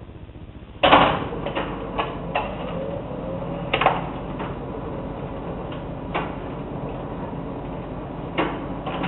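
1963 Rank Xerox 813 desktop copier running a copy cycle: it starts with a loud clunk about a second in, then runs steadily with repeated clicks and clunks from its mechanism as the original is drawn through.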